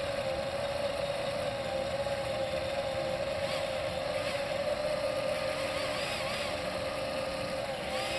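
Electric motor of a motorized fire tornado rig running at a steady speed with an even whine. Under it is the rushing noise of the spinning flame vortex.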